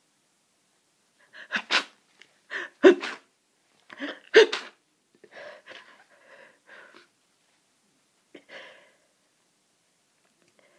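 A person sneezing in a fit, from hay fever and a cold: several sharp sneezes in the first five seconds, the two loudest about three and four and a half seconds in. These are followed by quieter breathy sounds.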